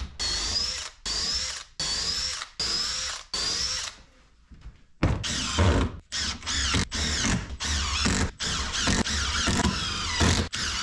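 Cordless drill run in about five short trigger pulses, its motor whine rising with each one. About five seconds in, a Makita impact driver takes over, driving 2-inch wood screws in a string of short, rattling hammering bursts.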